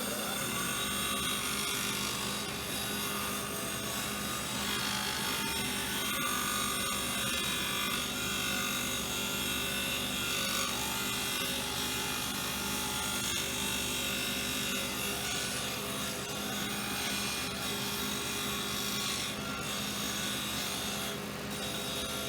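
Disc sander running steadily while the edge of an acrylic disc, turned on a pivot bolt in a sanding sled, is sanded round against the disc.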